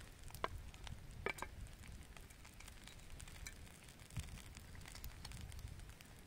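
Faint sizzling and crackle of food in a pan over a wood campfire, with a few light clicks of a wooden spoon scraping food off a metal plate into the pan.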